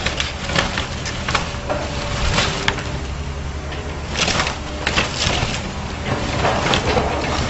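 A house being torn down by a demolition machine: the machine's engine runs steadily while the building cracks and crunches in repeated sharp breaks, several a second at times.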